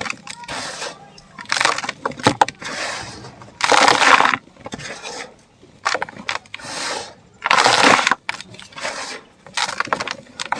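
Chunks of dry sand-dirt and cement crumbling and crushing apart, a series of about nine gritty crunching bursts with crackly clicks, the loudest about four and eight seconds in.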